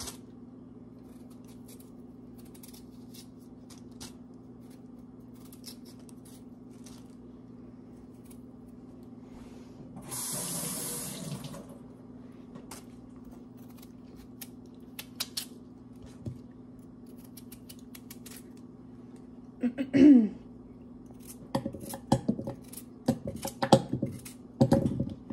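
Potatoes being peeled with a kitchen knife: faint scrapes and small clicks over a steady low hum, with a tap running into the sink for about two seconds near the middle. Louder knocks and scrapes come in the last few seconds.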